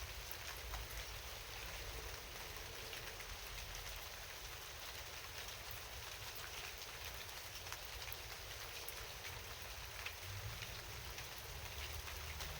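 Steady rain: an even hiss dotted with many small drop ticks, over a low rumble underneath.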